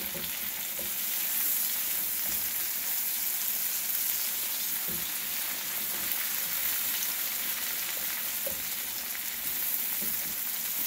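Chicken pieces and crushed garlic sizzling steadily in a hot skillet, with occasional soft scrapes of a spatula stirring them in the pan.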